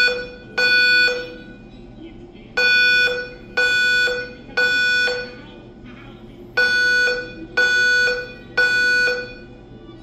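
Simplex fire alarm speaker sounding the Code 3 temporal evacuation tone: a steady horn-like tone in groups of three half-second beeps, each group followed by a pause of about a second and a half.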